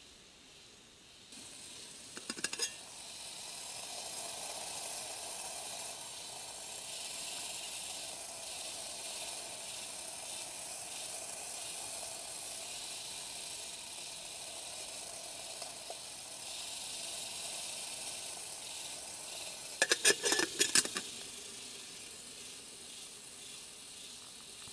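Aluminium camping kettle of water heating on a tuna-can stove, hissing steadily as it comes up to the boil for tea. Two short bursts of clicking come about two seconds in and again about twenty seconds in.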